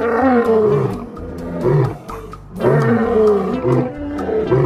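Male lion roaring: two long, deep roars about two and a half seconds apart, then shorter grunting roars near the end.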